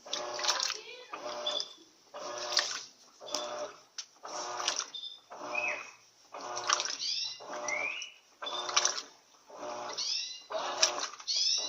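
Turbo LT13B 13 kg washing machine agitating: the motor whirs in short strokes, roughly every three-quarters of a second, as the agitator swings back and forth, with water sloshing against the drum.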